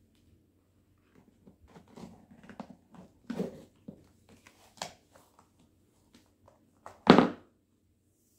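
Bare feet slipping in and out of patent-leather stiletto pumps on a laminate floor: a string of soft scuffs and small knocks, then one louder rub as a foot slides out of its shoe about seven seconds in.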